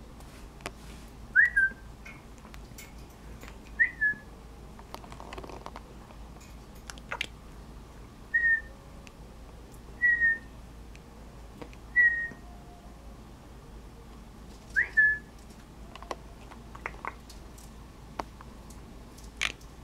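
Six short, clear whistled notes a couple of seconds apart, each a quick upward swoop into a brief falling tone, with a few faint clicks between them.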